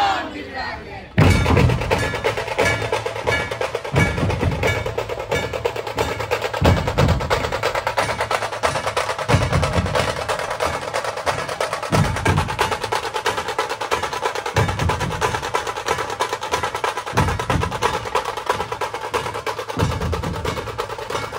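Dhol-tasha ensemble playing loud: tasha kettle drums beaten in rapid, unbroken rolls over heavy dhol barrel-drum beats that land about every two and a half seconds. The drums all come in together about a second in, after a brief shout.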